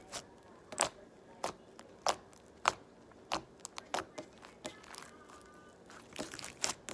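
Yellow foam slime with foam beads being kneaded and poked by hand, giving short sticky pops and crackles in a steady rhythm of about one and a half a second, coming faster near the end.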